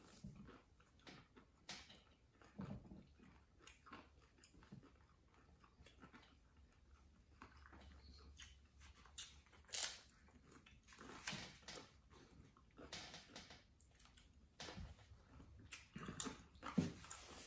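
Quiet chewing and crunching of crisp corn tostadas with cheese dip: scattered short crunches and mouth sounds, the sharpest about ten seconds in.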